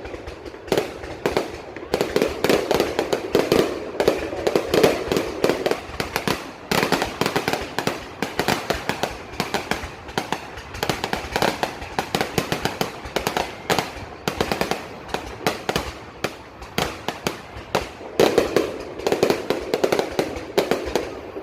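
Aerial fireworks going off continuously, a dense run of many sharp bangs and crackles each second.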